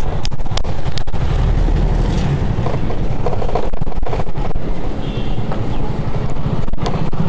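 Street traffic rumble, loudest in the first few seconds as a small hatchback car passes close by on a brick-paved lane, with a few faint clicks.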